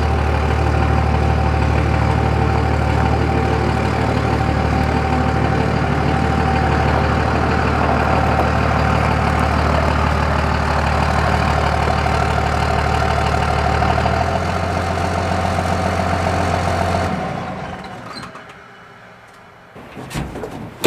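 Vehicle engine idling steadily, then switched off about seventeen seconds in. A few sharp knocks follow near the end.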